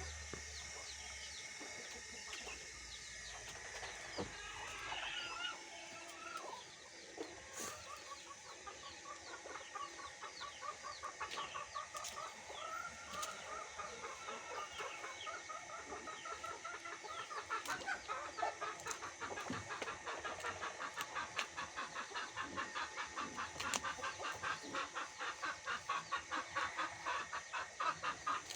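Chickens clucking: a long run of short clucks, about three a second, growing louder about halfway through.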